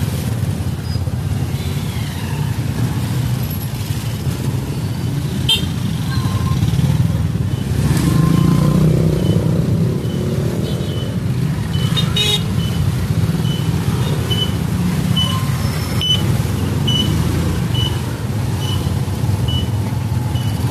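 Motorcycle-sidecar tricycle engines running in street traffic, a steady low rumble that swells as a tricycle passes close about eight seconds in. From about twelve seconds in, a short high beep repeats roughly every three-quarters of a second.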